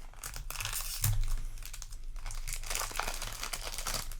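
Crinkling and rustling of a trading-card booster pack's foil wrapper being handled, in irregular bursts.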